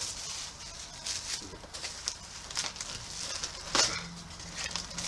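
Plastic snack packaging crinkling and crackling as it is handled, with a sharper crackle near the end.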